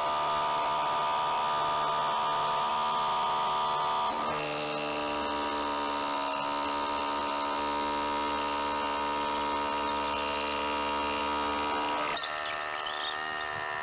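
DeWalt cordless SDS drill running steadily with an 8 mm SDS bit, boring through a timber fence post and on into a concrete wall. Its note changes about four seconds in, and by about six seconds in the bit is into the concrete; near the end the sound eases a little.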